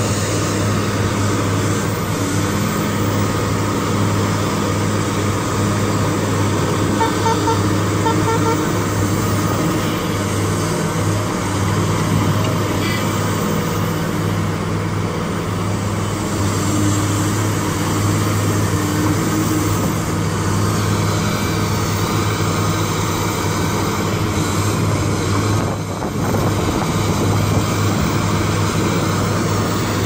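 Heavy diesel engine of a large Caterpillar hydraulic excavator running steadily under working load, a deep even drone. About seven seconds in there is a short run of high beeps.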